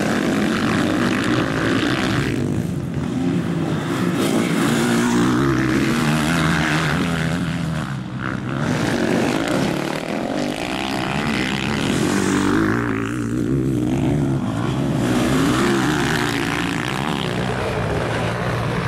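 Motocross dirt bike engines racing, revving hard and easing off so the pitch keeps rising and falling.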